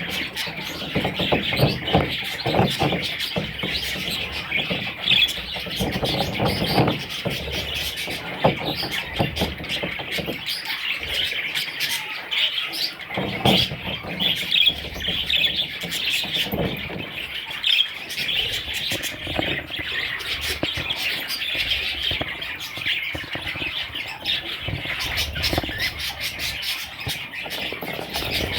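Budgerigars chirping and chattering continuously in a dense, overlapping twitter, with scattered low knocks and rustles.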